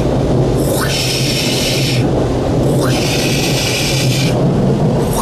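Automatic car-wash air-dryer blowers heard from inside the car: a steady drone that sounds like a big jet engine, with two hissing whooshes of air sweeping over the car about two seconds apart.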